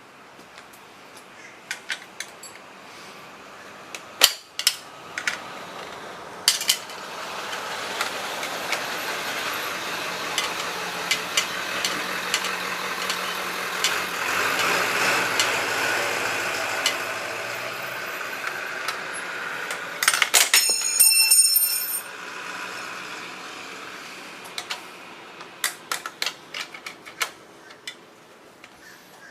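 Hand tools and loose metal parts clinking and knocking as a motorcycle's rear fender and license plate bracket are worked on, with a quick run of rapid metallic clicks about twenty seconds in. Through the middle a rushing noise builds up and then fades away.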